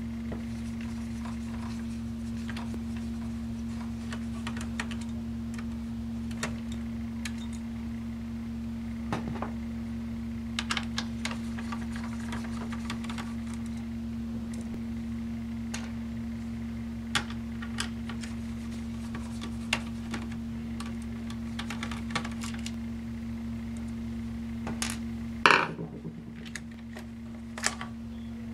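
Small clicks and clinks of a screwdriver and tiny screws as a laptop's heatsink and fan assembly is unscrewed and lifted out, over a steady low hum. One louder clack with a short ring comes near the end.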